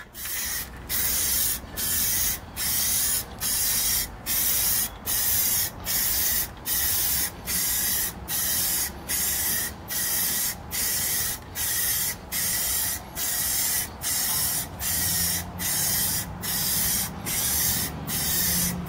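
Aerosol can of Rust-Oleum gloss black spray paint hissing in repeated short passes, a little over one a second, each cut off by a brief pause.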